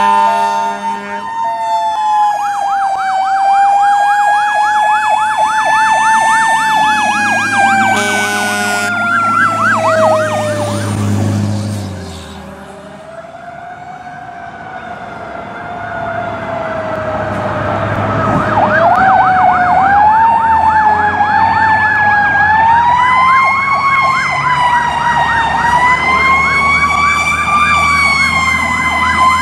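Fire truck electronic sirens sounding, switching between a slow rising-and-falling wail and a fast yelp, with short steady horn blasts at the start and about eight seconds in. The sirens drop away briefly around twelve seconds in, then come back loud.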